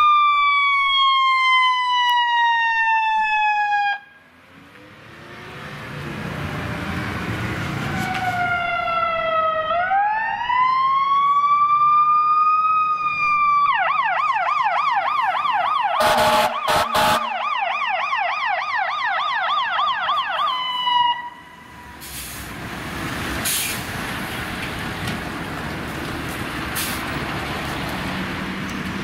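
Emergency vehicle sirens: a wail falling in pitch, then after a break a wail rising again, then a fast yelp. Two short loud blasts cut through the yelp partway. Vehicle engine and traffic noise follow once the sirens stop.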